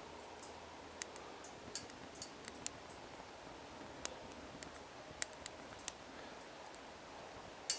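Small wood fire crackling in a twig stove: scattered, irregular sharp pops and snaps over a faint steady hiss.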